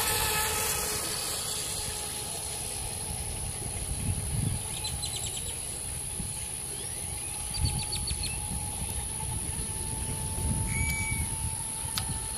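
Faint, steady whine of a distant Atomik Barbwire XL RC race boat's brushless electric motor as it runs far out on the water, with wind gusting on the microphone. A few short bird chirps come in about halfway through.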